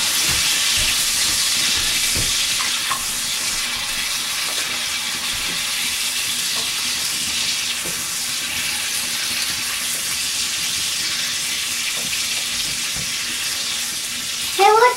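Venison heart sizzling as it cooks over an open hearth fire: a steady frying hiss with a few faint ticks.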